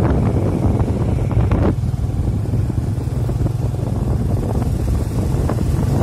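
Motorcycle engine running steadily while riding over a rough dirt forest track, with scattered knocks and rattles from the bumps and a noisy rush of wind and road noise.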